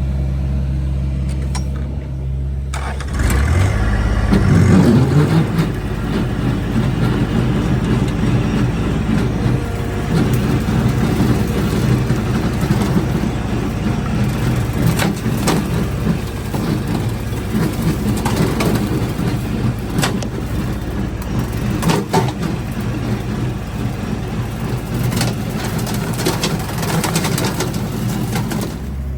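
Tractor diesel engine idling, then revving up about three seconds in and running hard under load while working mud, with scattered sharp knocks throughout.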